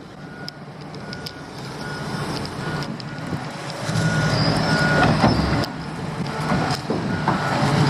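Reversing alarm on a heavy construction machine beeping about once a second over its running diesel engine. The engine grows louder about halfway through, with a few metallic clanks.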